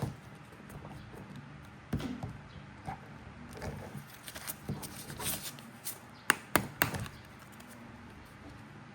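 Plastic superhero toy figures being handled, giving scattered light taps and clicks, with three sharper clicks in quick succession about two-thirds of the way through.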